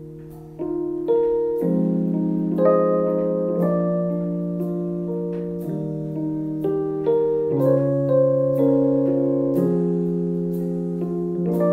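Piano playing a slow chord progression, a new chord every second or two, with faint ticks keeping a steady beat above it.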